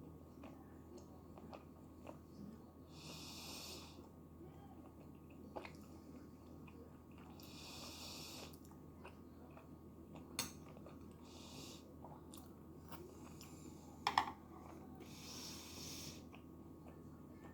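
Quiet close-up eating sounds of someone chewing tteokbokki, with small wet mouth clicks and a sharper click or clink about 14 seconds in. Four short hissing breaths come a few seconds apart.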